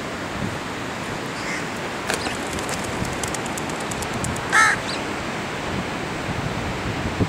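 A crow caws loudly once about four and a half seconds in, with a fainter call earlier, over a steady wash of wind and surf.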